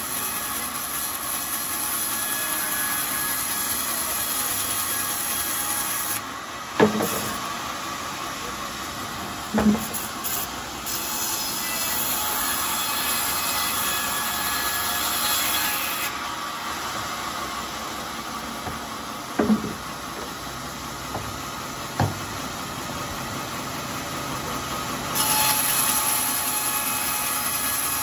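Band sawmill running while teak boards are resawn, a steady mechanical running with a high hiss that drops away twice and returns. Four sharp wooden knocks, at about 7, 10, 19 and 22 seconds, stand out over it.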